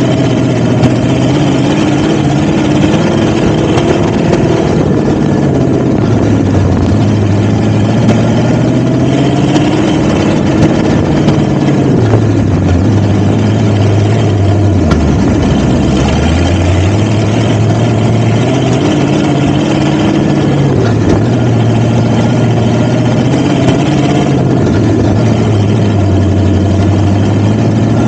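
Off-road vehicle engine running continuously, its pitch rising and falling with the throttle, dropping to its lowest about fifteen seconds in before building up again.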